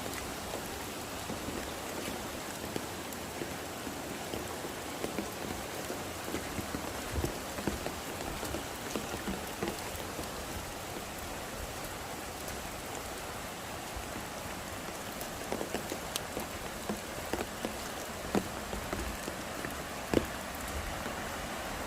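Steady rain falling, with many individual drops ticking close by and a few louder drop hits.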